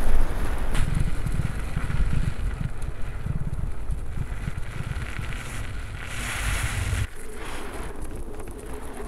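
Wind buffeting the microphone of a camera mounted on an electric hub-motor trike moving over snow and ice. A heavy low rumble drops away suddenly about seven seconds in, just after a short burst of hiss.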